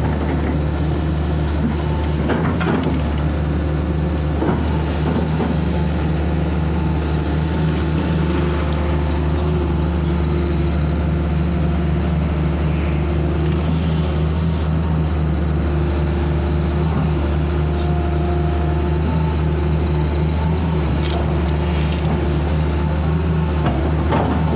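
Hitachi excavator's diesel engine running steadily, heard close from the cab while the arm works. A few short knocks sound about two seconds in and again near the end.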